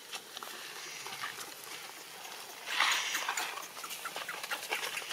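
Scuffling and rustling with a few faint, brief squeaks from a baby monkey, and a louder rustle about three seconds in.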